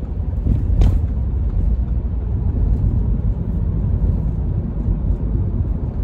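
Steady low road and engine rumble inside a moving car's cabin, with one brief knock about a second in.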